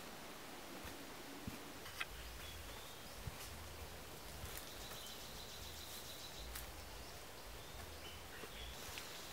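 Faint forest ambience with a few sharp clicks and a thin, high, steady call in the middle lasting about two seconds, from a bird or insect.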